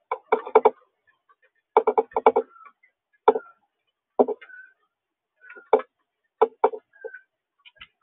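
Male northern cardinal pecking at seed in the feeder tray right beside the camera: irregular clusters of sharp taps, several in quick succession, then single taps every second or so.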